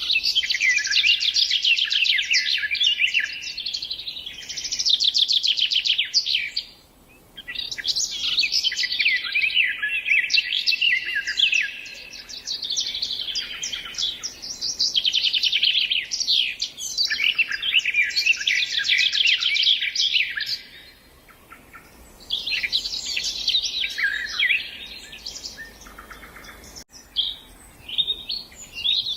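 Songbirds singing in long, rapid phrases of trills and chirps, high-pitched and overlapping, with brief pauses about 7 and 21 seconds in.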